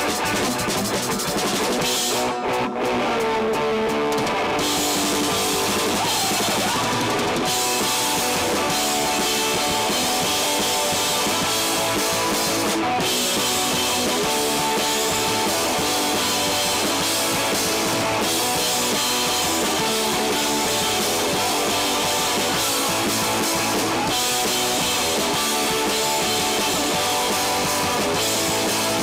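Live rock band playing electric guitars, bass guitar and drum kit. The cymbals thin out for a few seconds about two seconds in, then come back.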